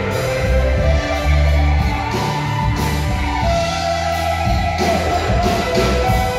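Live band playing an amplified song, with guitar over a steady bass line and a voice singing.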